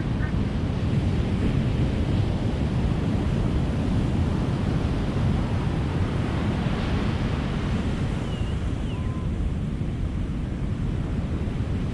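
Ocean surf washing ashore in a steady, continuous rush, with a wave breaking a little past halfway.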